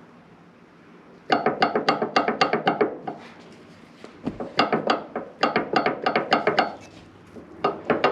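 Background music: three short phrases of quick, evenly spaced pitched notes, about six a second, with brief pauses between the phrases.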